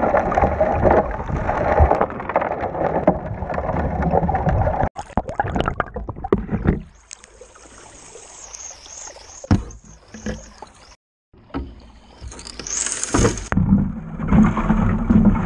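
Creek water rushing and splashing through a small metal sluice box, gravel washing over its riffles and mat. After a cut it is quieter, then loud again near the end as the sluice's load is washed out into a gold pan.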